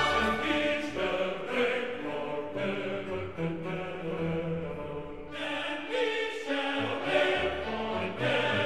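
Background music with sustained, choir-like sung voices.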